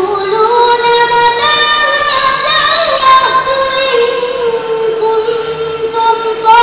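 A girl reciting the Qur'an in melodic tartil style into a microphone. She holds long, ornamented notes with a wavering pitch.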